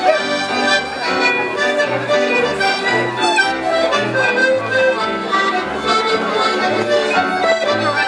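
Scottish country dance music, an accordion-led tune over a steady bass beat of about two pulses a second.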